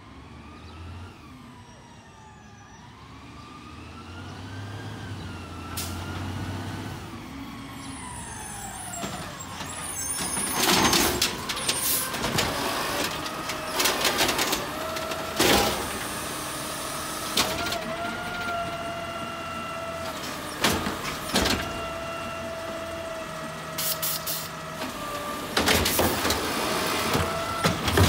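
Automated side-loader garbage truck pulling up with its drivetrain whining up and down in pitch, then its hydraulic arm lifting and emptying a green yard-waste bin into the hopper over a steady hydraulic whine, with a series of loud bangs as the bin is shaken out and set back down.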